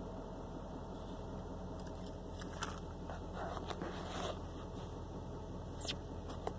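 Cummins 5.0-litre V8 turbo-diesel of a 2018 Nissan Titan idling at about 1,000 rpm on a cold start, a steady low hum heard from inside the cab. Crackling and scraping from handling the phone come about midway, with a couple of sharp clicks near the end.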